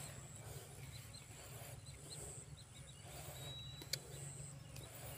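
Faint outdoor background: a steady low hum with a few short, high chirps, and a single sharp click about four seconds in.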